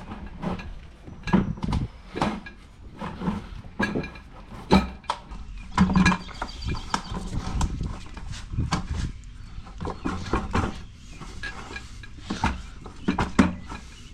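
A tubeless motorcycle tire being worked onto a cast mag wheel by hand: irregular knocks and thumps as the rubber and wheel are pushed and shifted, some with a short dull ring.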